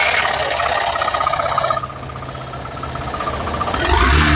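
Hero Super Splendor BS6's single-cylinder fuel-injected engine running just after being started, freshly serviced with its throttle body, injector and fuel pump cleaned. It is loud for the first two seconds, quieter after that, and builds up again near the end.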